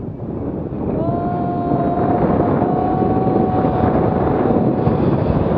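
Wind rushing hard over the camera microphone during a steep paragliding spiral turn. From about a second in until near the end, a long, high, held shout rides over it.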